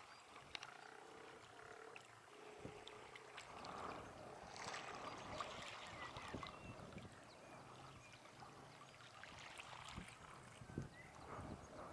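Faint scuffing and rustling of a dog's coat rubbing and sliding along dry sand, in short scrapes that come and go, strongest about halfway through and again near the end, over a soft steady hiss.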